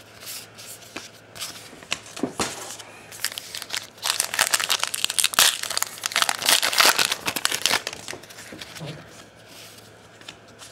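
Allen & Ginter baseball-card pack wrapper crinkling and tearing as the pack is opened, loudest for about four seconds in the middle, with softer rustles of cards being handled before and after.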